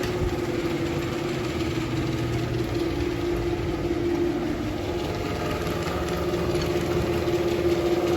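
Genie garage door opener's motor running steadily with a steady hum, driving the door open.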